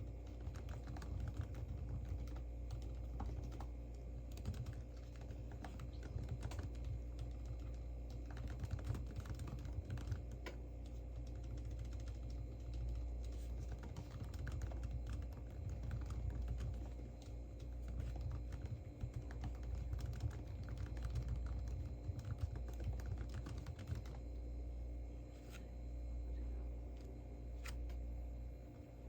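Typing on a computer keyboard: irregular runs of key clicks, thinning out for a couple of seconds near the end, over a steady low room hum.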